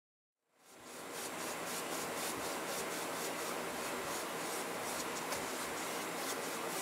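Cloth rag wiping wood stain over a walnut-veneered tabletop lid: a steady rubbing of cloth on wood with many short strokes. It fades in about half a second in.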